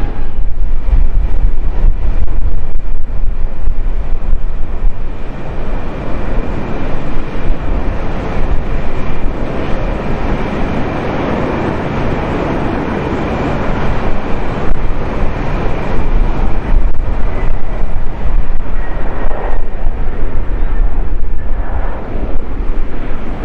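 Jet airliner engines rumbling as a Finnair twin-engine jet lands and rolls out on the runway, swelling in the middle and again near the end, with a faint steady whine.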